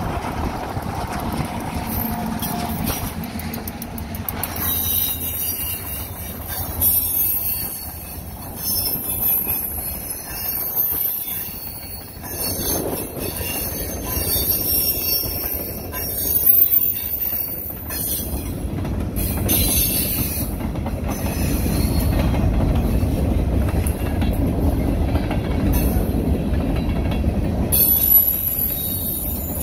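Freight train passing close by: the diesel locomotives' engines go by first with a steady hum, then a string of loaded hopper cars rolls past, a low rumble of wheels on rail with high-pitched squealing from the wheels.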